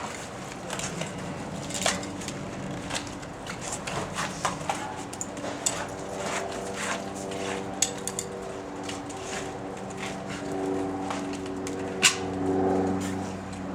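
Bicycle tires, rims and tire irons being worked by hand during a tube change: irregular clicks, knocks and rubbing. A steady low hum comes in about halfway through.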